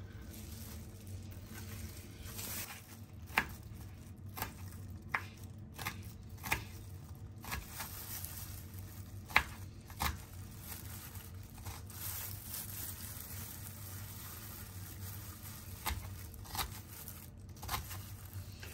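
Small kitchen knife slicing a red onion on a bamboo cutting board: irregular sharp taps of the blade on the board, a dozen or so spread out, over a low steady hum.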